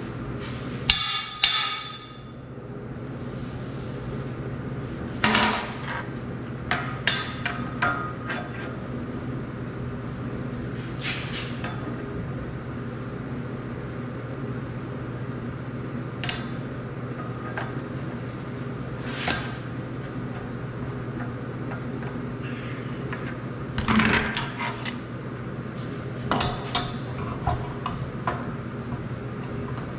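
Scattered sharp hammer taps and metallic clinks on steel pipe, coming singly and in small clusters, as two pipe sections are tapped into line at the joint. A steady low hum runs underneath.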